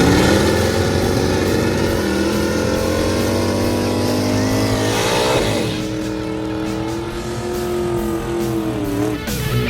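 Plymouth Road Runner drag car's V8 at full throttle down the strip: the engine note climbs steadily for about five seconds, drops sharply at a gear shift, then holds steadier and eases off near the end.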